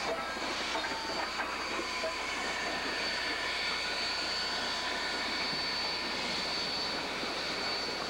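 Southern Pacific 786 steam excursion train passing close by: its tender and then its passenger coaches roll past with a steady noise of wheels on the rails, a few clicks in the first second or so, and a thin steady high tone.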